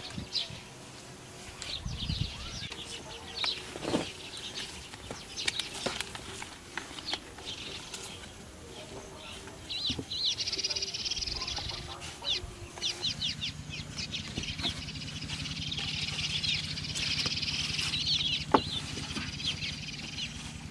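Birds chirping and chickens clucking throughout, with occasional sharp knocks of wooden poles being handled. A steady low buzz joins about two-thirds of the way through.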